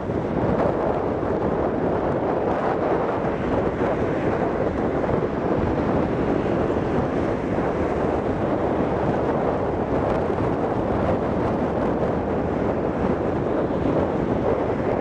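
Boeing 757-200's twin jet engines at takeoff thrust as the airliner rolls down the runway, lifts off and climbs away: a steady, even roar.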